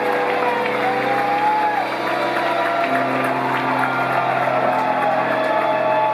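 A live band playing the slow start of a song, mostly long held chords over a steady low tone. Crowd noise, scattered cheers and whoops, and a few claps run over it.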